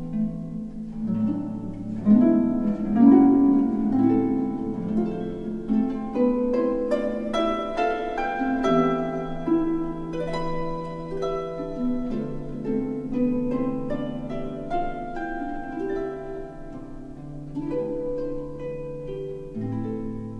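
Instrumental background music: a melody of single notes moving over long held low notes.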